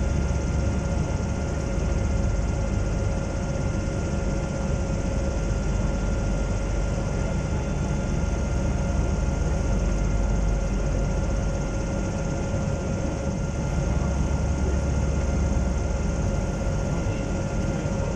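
Steady drone of a Zeppelin NT airship's engines and propellers in flight, heard from inside the cabin: a deep rumble with a couple of steady humming tones above it.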